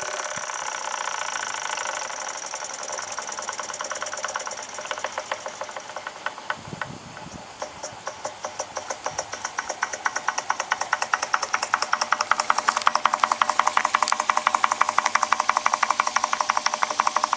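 Jensen model steam engine running on live steam: a steady hiss at first, then rhythmic exhaust chuffs that start slow and spaced about 4–5 seconds in and speed up into a fast, even beat, getting louder as the engine comes up to speed.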